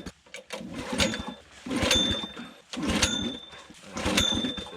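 Small engine that powers the air-pressured pruning snips being pull-started: four pulls on the recoil starter about a second apart, each a short rumble of the engine turning over ending in a brief high ring, without the engine catching. It is hard to start, typically taking about ten tries.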